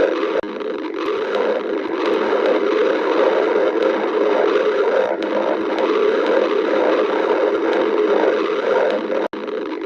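Stomach growling: a continuous low, churning rumble that cuts out for an instant near the end.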